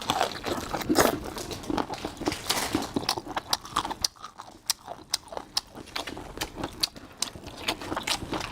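Someone chewing boneless chicken feet close to the microphone: a dense run of sharp crunches, several a second, from the cartilage left in the feet.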